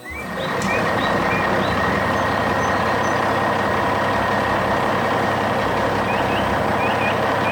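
Heavy vehicle engine running at a steady, even level, cutting in suddenly at the start, with short high chirps above it.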